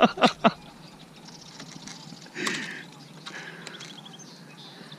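Faint bird calls from the surrounding reed marsh, with one short, louder, harsher sound about halfway through.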